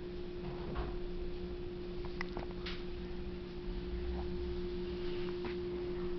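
A few short, faint hiccups a second or two apart, over a steady hum that is the loudest thing throughout.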